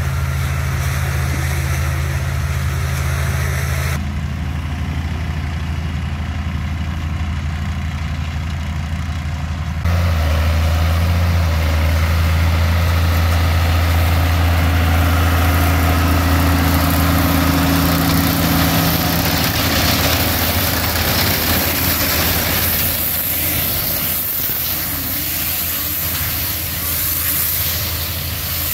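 Fendt tractor's diesel engine running steadily as it pulls a Krone round baler-wrapper through hay swaths, a steady low drone. The sound changes abruptly about four and ten seconds in, and turns noisier and hissier in the last third.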